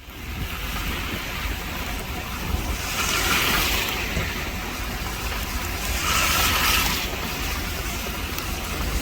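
Wind rumbling on the microphone over a steady rushing hiss, which swells twice, about three and six seconds in.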